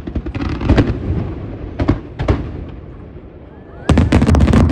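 Aerial fireworks shells bursting in rapid volleys of cracks and booms, in several clusters, with the loudest, densest run of bangs near the end as a wide salvo of gold shells goes off together.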